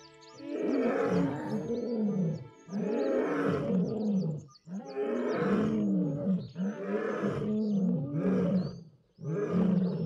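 Male African lion roaring in long, deep bouts, each a string of rising-and-falling moans, with short breaks between them and a new bout starting near the end.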